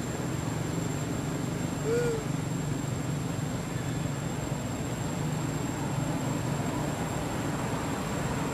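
A monkey gives one short, arched coo about two seconds in, over a steady low rumble and a thin high whine.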